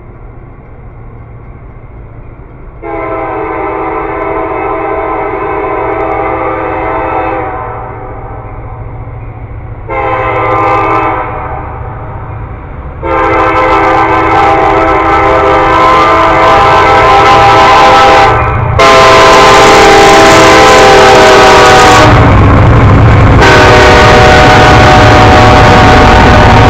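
CSX freight locomotive sounding its air horn for a grade crossing as it approaches: a long blast, a short blast, then long, nearly unbroken blasting. Over the last several seconds the locomotive's engine rumble and wheel-on-rail noise swell as it passes close by, with the horn still sounding.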